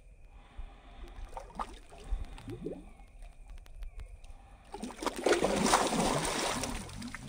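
A large gar splashing and thrashing at the surface of shallow water as it bolts, a loud churning splash starting about five seconds in and lasting about two seconds, after a few quiet seconds of small water sounds.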